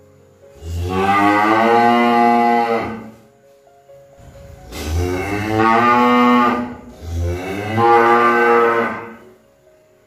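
Cow mooing: three long moos of about two seconds each, the second and third close together.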